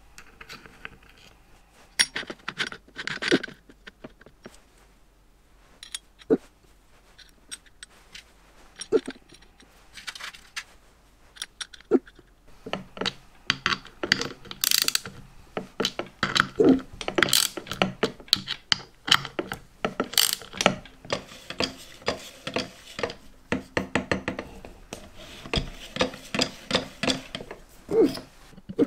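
Metal clicks and knocks from hand tools and engine parts being handled: a few scattered knocks at first, then rapid, closely spaced clicking from about halfway through.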